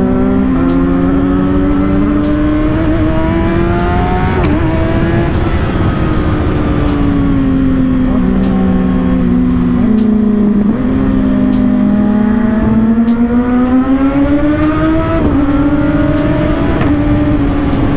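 Two Kawasaki inline-four sport bikes running side by side: a Z900 with a loud aftermarket exhaust and a ZX6R 636. Their engine notes rise and fall together as they accelerate and ease off.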